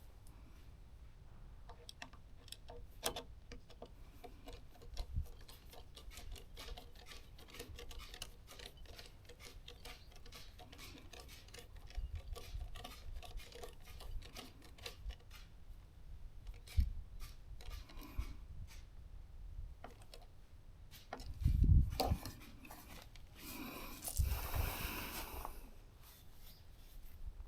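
Handling noise of an NGAL unit on an airsoft gun's Picatinny rail: many small sharp clicks and scrapes, a louder knock near the end, then a few seconds of scraping rustle.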